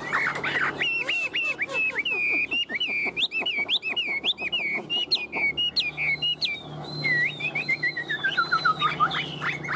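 Chinese hwamei singing: a rapid, varied run of whistled notes, with a falling series of quick short notes near the end.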